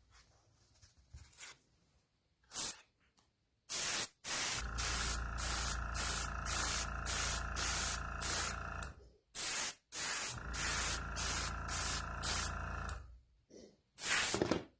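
Airbrush spraying chrome paint: a few short bursts of hiss, then two longer runs in which the spray pulses about three times a second over a steady low hum.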